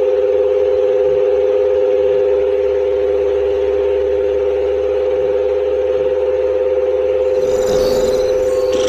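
A steady, unchanging hum of two close tones, with a fainter low rumble underneath that stops near the end.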